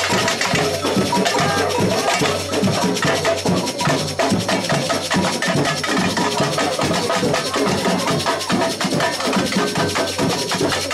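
Samba batucada percussion group playing a dense, steady drum rhythm with sharp wood-block-like strikes over the drums.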